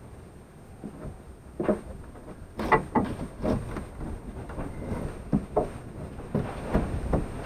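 Irregular scrapes and knocks from a person working in a dirt crawl space under a house. They start about a second and a half in and come several times a second, the loudest a little under three seconds in.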